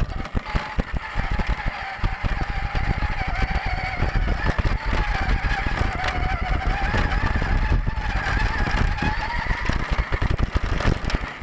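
Electric motor and gear whine of an Axial Deadbolt 1/10 scale RC crawler, picked up by its onboard camera, a steady whine that drifts gently up and down with throttle. Dense rattling and crunching from the chassis and tyres runs under it as it crawls over dirt and wood chips.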